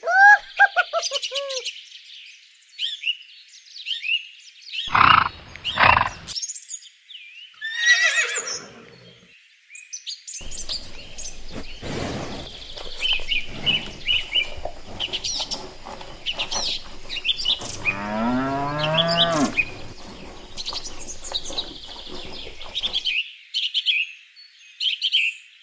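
Birds chirping and singing in a farmyard ambience, with a few louder sudden sounds and, about two-thirds of the way through, one drawn-out livestock call that rises in pitch.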